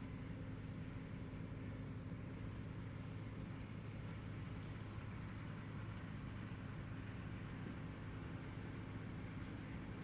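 Steady engine drone with a constant low hum, heard from inside a vehicle.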